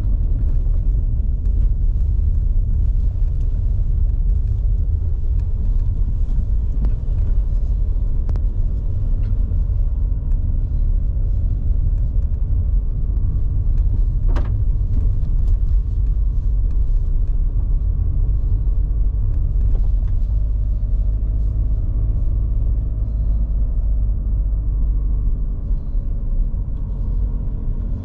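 Steady low rumble of a car on the move, heard from inside the cabin: engine and tyre noise at an even, unhurried pace.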